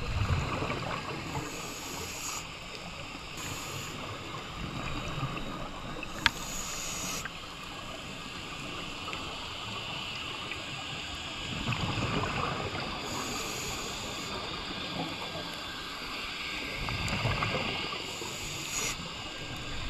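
Underwater sound of a scuba diver breathing through a regulator: short hisses on each breath and bursts of exhaled bubbles about every five or six seconds, over a steady muffled water rumble. A single sharp click about six seconds in.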